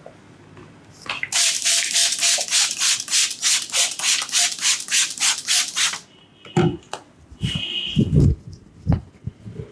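Hands rubbing briskly over skin in a massage: a fast, even run of scratchy strokes, about four to five a second, for about five seconds. A few dull thumps follow near the end.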